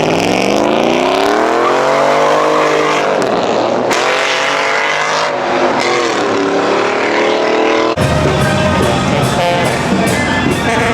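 A car engine revving hard as it accelerates, its pitch climbing, dropping back briefly about three and four seconds in, climbing again, then falling. About eight seconds in it cuts off suddenly to music.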